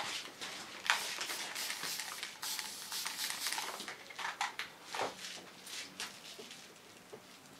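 Hand-pump spray bottle misting water onto short hair, a quick series of squirts over the first four or five seconds. Then a few faint clicks of comb and scissors.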